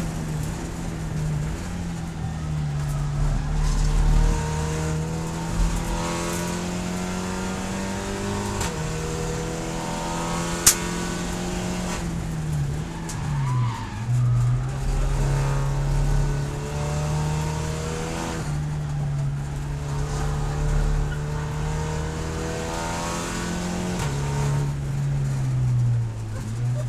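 Volkswagen Scirocco GT24 race car's engine heard from inside the cockpit, running hard at speed, then falling in pitch under braking and downshifts a little under halfway through before pulling steadily again, with another drop and gear change near the end. A single sharp click about eleven seconds in.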